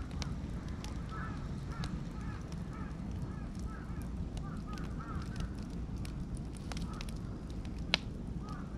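Beech and oak wood fire crackling, with scattered sharp pops and one much louder pop near the end.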